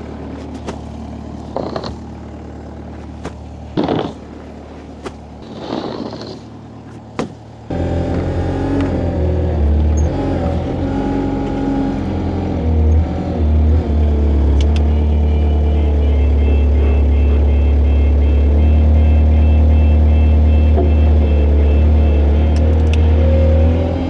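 A few scattered knocks and clatters, then about eight seconds in a heavy vehicle's engine comes in suddenly and runs loudly and steadily, with a deep low hum.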